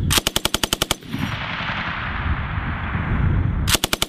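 M240B belt-fed 7.62 mm machine gun firing a short burst of about ten rounds in under a second, then a second burst starting near the end. A steady rush of noise fills the gap between the bursts.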